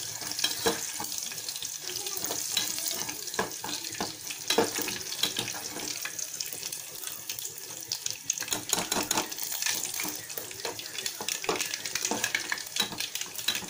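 A tempering of mustard seeds, cumin, garlic and curry leaves sizzling in hot oil in an aluminium pot, with many small crackling pops. A steel ladle stirs and scrapes against the pot.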